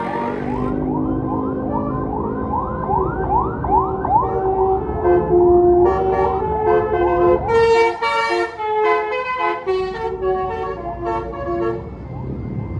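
Tour bus Basuri 'telolet' multi-tone horn playing a rapid run of rising, siren-like whoops, about three a second. From about six seconds in it plays a tune of short held notes, over low engine noise.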